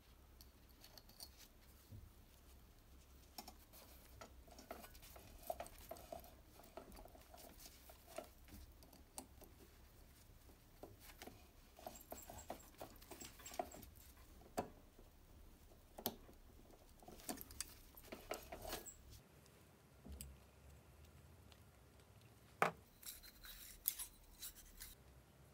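Faint small metal clicks and scrapes as a split pin is pushed through the rear hub nut of a Vespa engine and its legs are bent over with pliers. One sharper click comes near the end.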